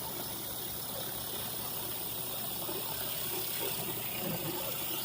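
Commercial pressure washer running, its surface cleaner spraying water onto concrete with a steady hiss.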